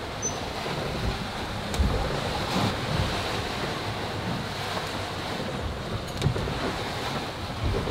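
Steady rush of wind and sea around a sailing catamaran running fast through big waves, with wind buffeting the microphone. Two brief knocks stand out, about two seconds in and near six seconds.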